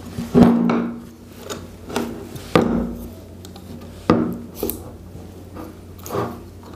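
Irregular metal knocks and clinks with scraping between them as a long through-bolt is slid into the end covers of a cooler-fan motor and the metal motor housing is turned over and set down on a wooden table.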